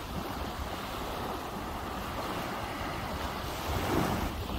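Small waves washing up a sandy shore, with wind rumbling on the microphone; one wave swells a little louder near the end.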